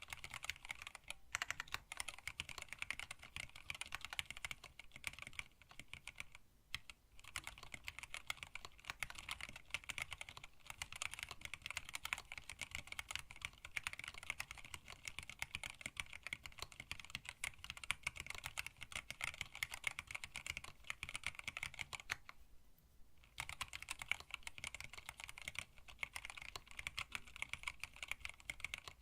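Fast continuous typing on a hand-wired split mechanical keyboard with Tealios linear switches, blank PBT keycaps and an acrylic case: a rapid patter of keystroke clacks with a few short pauses.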